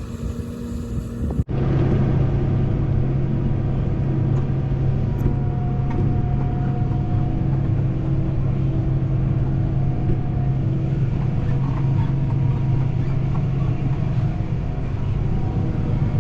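Wind buffeting the microphone for about a second and a half, then a cut to a tractor engine running at a steady, even drone, heard from inside the closed cab.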